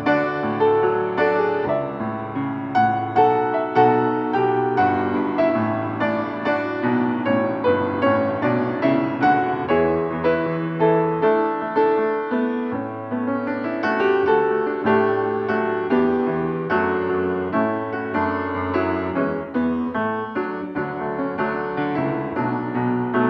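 Piano music playing: a quiet postlude with notes struck in a steady flow.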